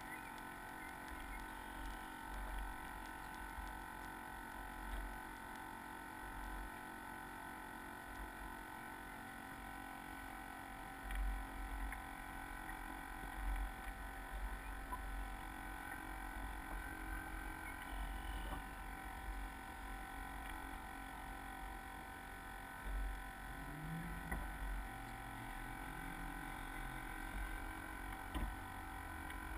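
Low rumble of wind and water on the deck-mounted camera of a Soling 1 meter model sailboat under sail, coming and going in uneven gusts over a faint steady hum.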